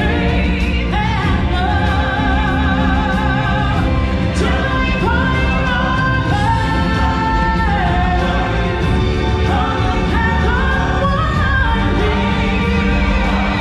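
Stage show music with singing: a voice holding long notes with vibrato over a steady accompaniment.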